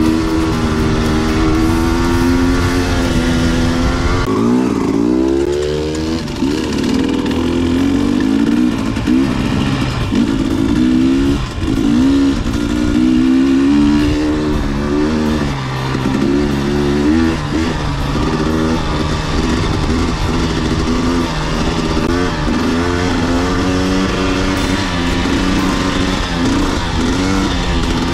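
Dirt bike engine running under way, its pitch rising and falling with throttle and gear changes, with a deep drop and climb again about four to six seconds in.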